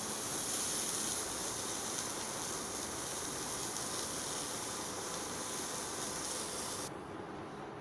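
A steady hiss that cuts off abruptly about seven seconds in.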